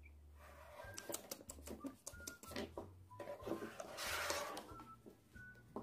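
Quiet, scattered light clicks and taps of plastic number cutters being picked up and set down on a tabletop, with a short scraping slide about four seconds in.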